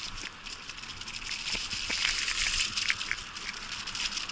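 Tyres rolling across the wooden planks of a footbridge: a dense crackling clatter of many small knocks from the boards.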